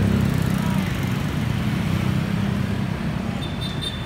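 Small motor scooter engine running close by and fading as it moves away, leaving a steady wash of road traffic noise. A short high tone sounds near the end.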